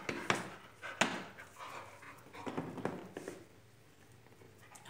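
A dog panting, with a few light clicks and knocks in the first few seconds, fading quieter near the end.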